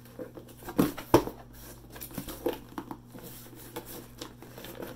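Small cardboard mailer box handled and pried open by hand: scattered scrapes and clicks of cardboard flaps, with two louder knocks about a second in.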